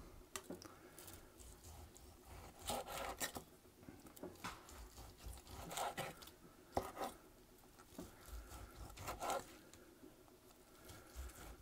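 Chef's knife slicing through a smoked tri-tip on a wooden cutting board: a series of faint, irregular slicing strokes, each a short scrape of the blade through the meat and its crusted bark.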